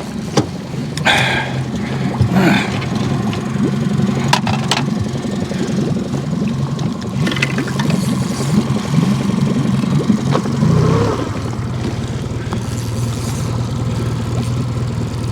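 Boat motor running steadily at low speed, its note changing briefly about ten seconds in, with a few knocks and rattles over it.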